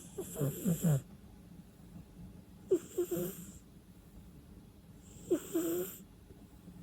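A sleeping cat snoring: three snores, each under a second long, about two and a half seconds apart.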